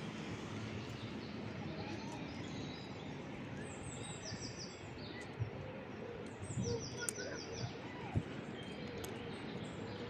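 Small birds chirping in two quick runs of high notes over steady outdoor background noise, with a couple of short low thumps.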